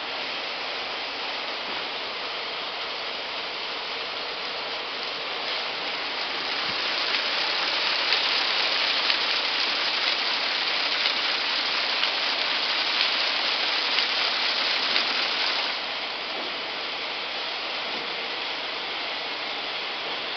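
Round drawcord braiding machine running: a steady, dense mechanical rattle of its many bobbin carriers. It grows louder with faint ticks from about a third of the way in, then drops back suddenly about three-quarters through.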